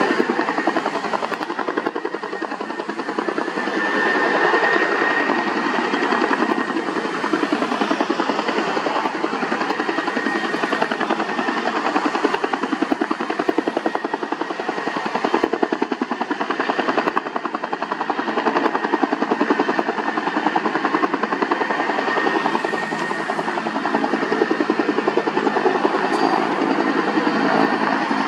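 Two-bladed Bell helicopter hovering with a load slung on a long line: a steady, fast beat of the rotor blades over a constant high turbine whine.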